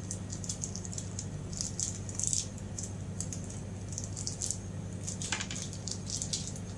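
Twist-wrapped candy wrappers crinkling and crackling as gloved fingers untwist and peel them off chocolate candies, in bursts of fine crackles over a steady low hum.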